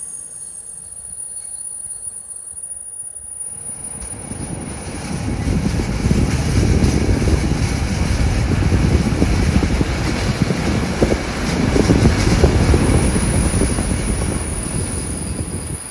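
Passenger train's brakes squealing as it slows into a station, a loud high-pitched squeak over the rumble of the coaches on the rails. From about five seconds in the rumbling rush of the train grows much louder, and the thin squeal comes back near the end.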